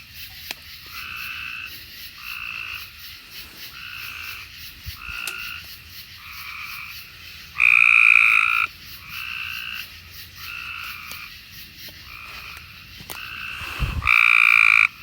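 Cope's gray tree frogs calling: a short call repeats about once a second, and two louder calls of about a second each come about halfway through and near the end.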